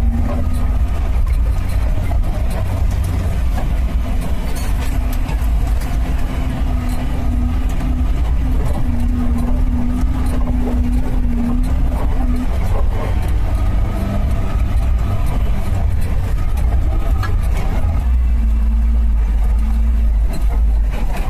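Suzuki Samurai small 4x4 driving, with a steady low engine and road rumble. The engine note changes pitch a couple of times, about two-thirds of the way through and again near the end.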